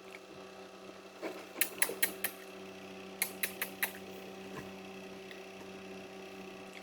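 Pet bird making sharp clicks with its beak in two quick runs of about four, over a steady hum.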